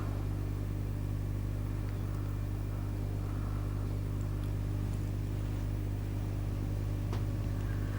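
Steady low electrical hum from the snoring-treatment device running one of its 25-second heating cycles on the soft palate.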